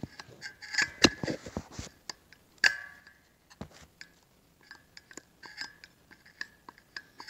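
Light metal clicks and scrapes as a feeler gauge is worked between the clutch plates and snap ring of a TH350 transmission clutch drum, checking clutch-pack clearance. There is a sharper knock about a second in.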